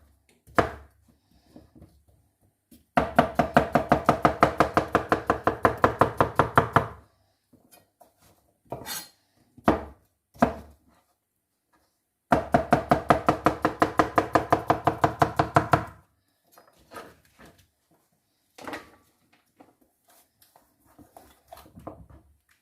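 Kitchen knife chopping rapidly on a cutting board, two quick runs of about four seconds each at roughly eight or nine strokes a second, with a few single knocks in between.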